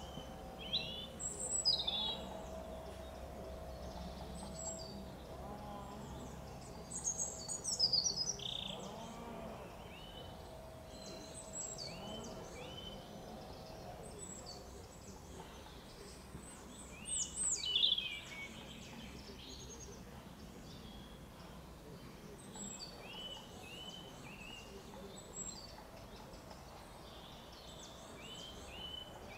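Small garden birds singing and chirping in short, quick, descending notes, with the loudest bursts about two seconds in, around seven to eight seconds and around seventeen seconds.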